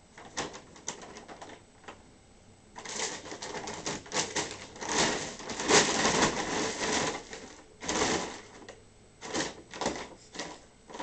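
A cat scrambling about in a bag, which rustles and crinkles in irregular crackly bursts, most continuous from about three seconds in to seven and a half.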